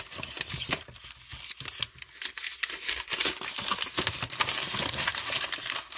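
Plastic packaging crinkling and rustling while new brake pads are handled and unpacked, with a continuous run of small irregular clicks.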